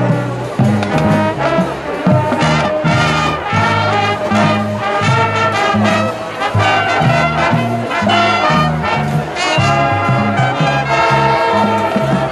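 High school marching band playing, brass to the fore with trombones and trumpets over a low brass bass line that moves from note to note.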